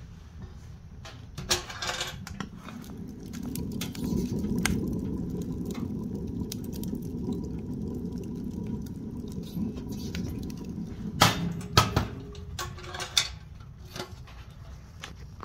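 Log fire burning in a homemade welded steel wood stove: crackling, with a sharp pop about a second and a half in and a cluster of louder pops near the end, over a low rumble that swells in the middle.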